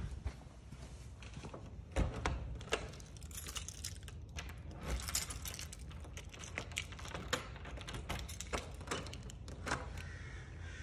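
Keys jangling on a keyring with clicks of a doorknob and lock as a door is shut and locked with a key. A sharp knock about two seconds in is the loudest sound.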